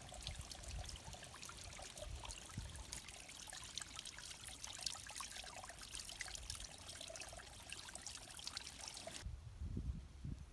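Faint trickling water, a dense fine patter of small drips. About nine seconds in it cuts off abruptly, giving way to low rumbling thumps.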